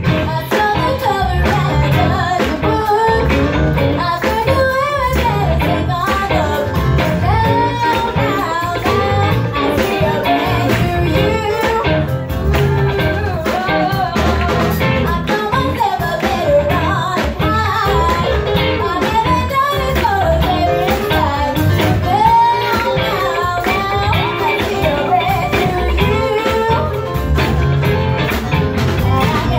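Two female singers singing a pop-rock song live, backed by a band of piano, drum kit and guitar.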